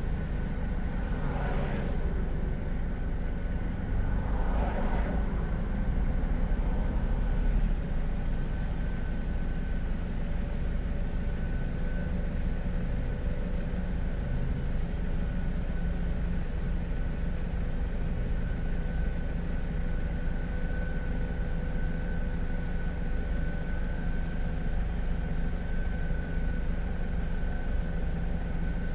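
Steady low rumble of a car idling while stopped at a traffic light, with traffic passing by twice in the first few seconds.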